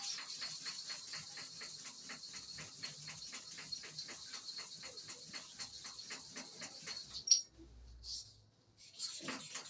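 Hair-clipper blade being rubbed back and forth on an oiled sharpening stone, a short rasping stroke about four or five times a second. The strokes stop about seven seconds in with a sharp click, then start again near the end.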